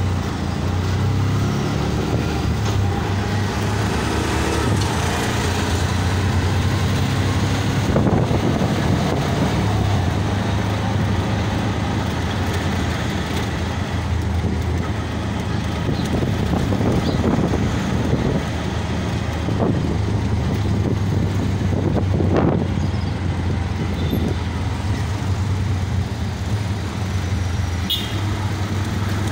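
Auto-rickshaw (tuk-tuk) engine running steadily with a constant low hum as it drives through town traffic, heard from inside the open passenger cab.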